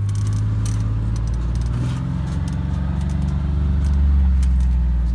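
Vehicle engine running with a low, steady hum, heard from inside the cab while driving slowly, with light rattles and clicks.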